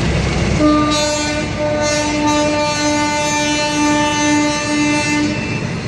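Diesel locomotive horn sounding one long note of steady pitch for about five seconds, with a few brief dips, as passenger carriages roll past.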